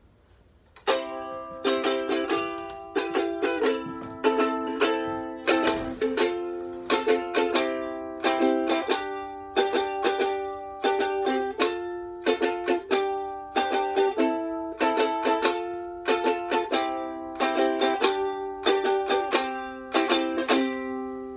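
Solo ukulele strumming chords in a steady rhythm, each chord ringing on and decaying before the next group of strums. It starts about a second in and dies away at the end.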